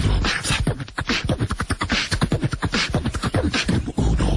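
Rapid beatbox-style vocal percussion: a fast run of clicks and puffs over low thumps, several strokes a second without a break.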